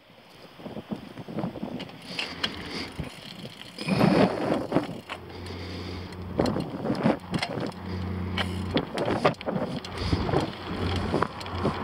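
Wind rush and road noise from a mountain bike descending a paved highway at speed, with frequent knocks and rattles from the mouth-held camera. The rushing gets louder about four seconds in, and a low steady hum comes and goes in the middle.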